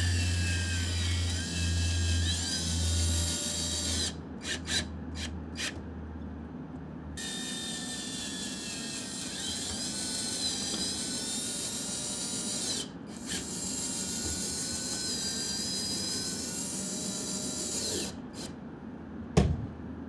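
Cordless drill-driver with a Phillips bit running, driving self-tapping screws through the tonneau cover into its spring reel. The motor whines in three long runs, its pitch rising and falling, with a few short blips between runs.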